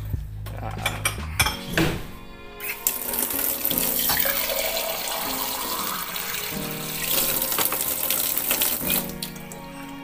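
Tap water running from a kitchen faucet into a glass jar held in the sink, starting about three seconds in and stopping shortly before the end. A few knocks of handling come just before the water starts.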